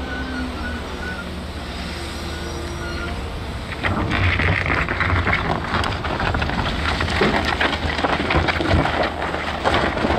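Heavy earthmoving machinery at work: a diesel engine runs steadily with a low hum, and about four seconds in a louder rushing, clattering noise sets in and keeps going.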